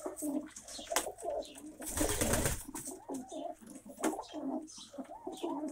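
Domestic pigeons cooing inside a loft, several birds' calls overlapping, with a short rush of noise about two seconds in.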